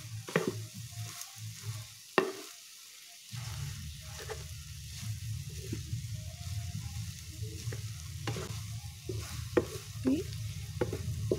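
Wooden spatula stirring and scraping shredded cabbage, egg and corned beef around a nonstick frying pan, with a faint sizzle and irregular knocks of the spatula against the pan over a low hum. About two seconds in a sharp knock is followed by about a second where the sound drops out.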